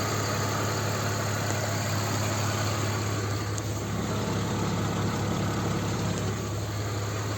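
BMW 325ci's M54 straight-six engine idling steadily, running on oil treated with Liqui Moly hydraulic lifter additive against lifter tick.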